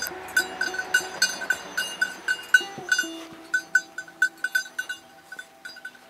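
Bird-dog bell on an American Brittany's collar jingling in quick, irregular rings, several a second, with a dog whining now and then.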